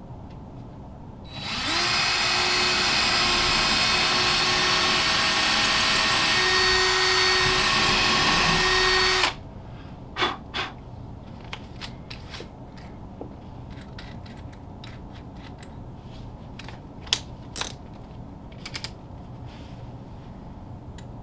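Cordless drill boring a 3/16-inch pilot hole into the wall. It runs at a steady whine for about eight seconds and stops suddenly, followed by a few light clicks and taps.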